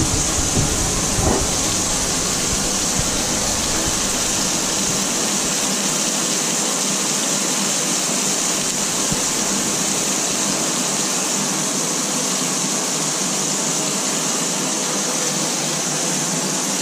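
Beef burger patties sizzling steadily in a steel frying pan on a gas hob, an even high hiss.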